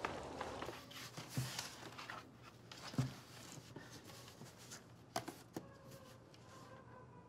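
Soft background music fades out within the first second. It leaves a quiet room with faint rustles and a few light knocks and clicks of people shifting and handling things, the loudest about three seconds in and a quick pair a little after five seconds.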